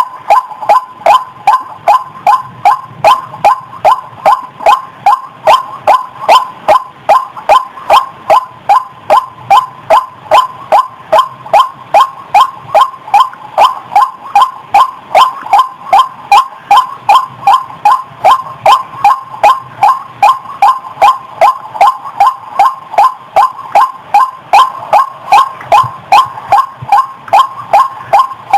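White-breasted waterhen calling: a monotonous, loud series of short repeated notes, about two and a half a second, kept up without a break.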